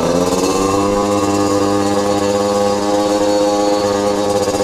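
Small engine of a mini dirt bike running at a steady speed, its pitch rising a little in the first half-second and then holding even.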